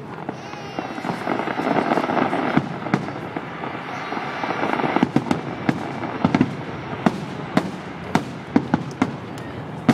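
Fireworks display: aerial shells bursting. A dense crackle fills the first few seconds, then comes a rapid string of sharp bangs, about two a second, through the second half.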